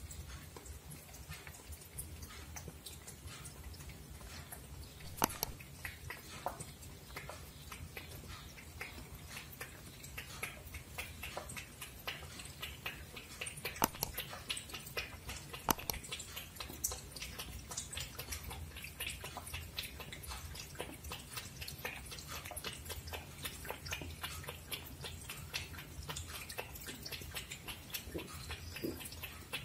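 Siamese cat feeding from a stainless steel bowl: a steady run of small wet clicks from its mouth and tongue, several a second. A few sharper ticks come about five, fourteen and sixteen seconds in, over a low steady hum.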